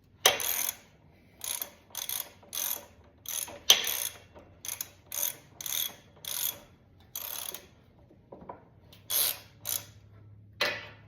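Ratchet wrench clicking through short back-and-forth strokes, roughly one or two a second with brief pauses, as a fastener is run down.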